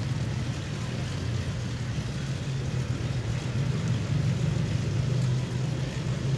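A motor running steadily: a low, even engine drone.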